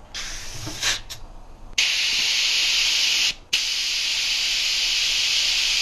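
Compressed air hissing at a motorcycle tire's valve stem as the tire is brought to pressure. It starts with a couple of short puffs, then becomes a loud steady hiss about two seconds in, with one short break in the middle and a stop at the end.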